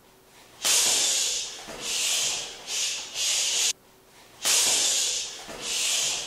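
Hissing whoosh noises, about six swells of up to a second each, with a sudden break of most of a second near the middle.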